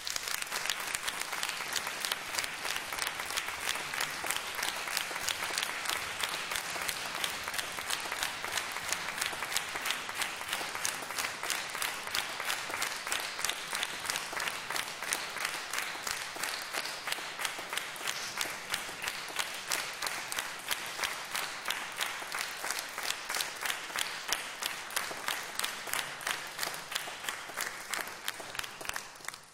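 Audience applauding: dense, steady clapping that begins suddenly and cuts off abruptly at the end.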